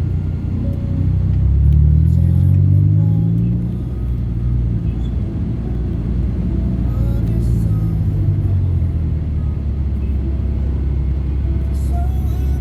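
Music with heavy bass playing on a car stereo inside a moving car, over low engine and road rumble. The bass swells loudest from about one and a half to four seconds in.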